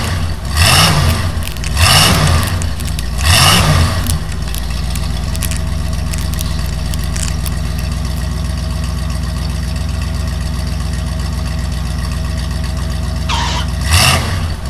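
Monster truck engine sound effect: the engine revs three times, then idles steadily, and revs up again near the end.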